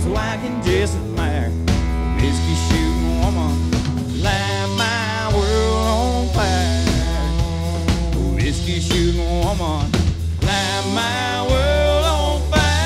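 Live country-rock band playing an instrumental break with no singing: drum kit, bass guitar and electric guitar, with a bending, wavering lead melody over them.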